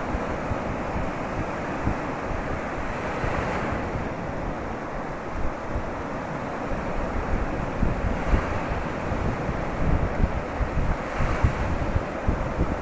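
Sea surf washing onto a beach, with three waves breaking a few seconds apart, and wind buffeting the microphone.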